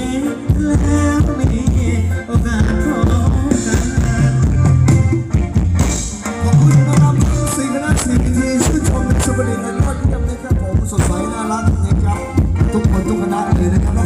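Loud live band music for a dance show, with a heavy bass line and a steady drum beat.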